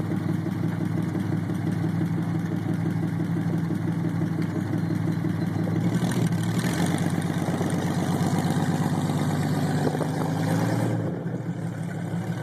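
Lincoln Zephyr flathead V12 engine of a custom motorcycle idling with a steady, even beat. About halfway in it picks up in pitch and loudness as it is revved. Near the end it drops off as the bike rides away.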